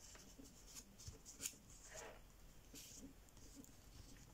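Faint rustling and creasing of a sheet of 80 g/m² printer paper being folded and pressed by hand, a few soft scratchy crinkles scattered through.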